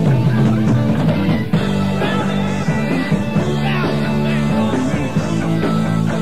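Rock band playing a song, with electric guitar over bass and drums, at a steady full level.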